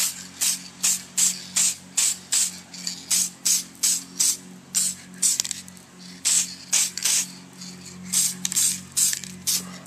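Aerosol can of urethane clear coat spraying in short hissing bursts, about two a second with a few brief pauses, as the clear coat is laid on a carbon fiber part.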